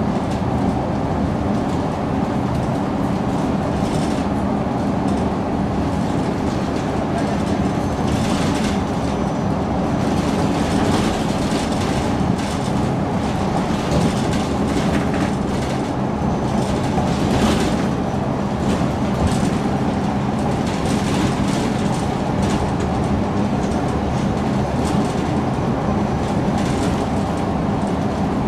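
MAN NG 313 articulated city bus driving, its engine and running gear making a steady drone, with occasional knocks and rattles.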